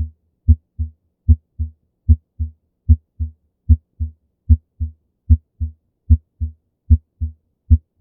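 Normal human heart sounds: a regular lub-dub, each beat a sharp louder first sound (S1) followed about a third of a second later by a softer second sound (S2), repeating about 75 times a minute.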